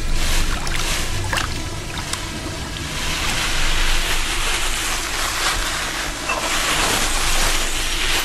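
Water sloshing and rushing, with a few short splashes in the first couple of seconds and a fuller, steadier wash after that.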